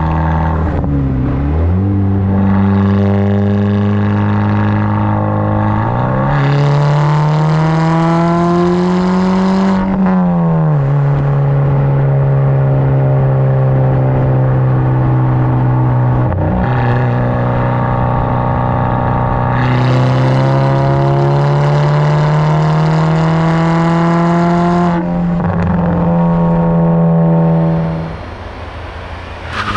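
Volkswagen MK6 GTI's turbocharged four-cylinder exhaust under acceleration, its pitch climbing and then dropping at each gear change, about four times. It goes off-throttle and quietens near the end.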